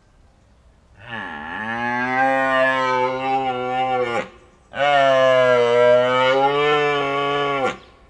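Cow mooing: two long, low, steady moos of about three seconds each, the first opening with a brief dip in pitch.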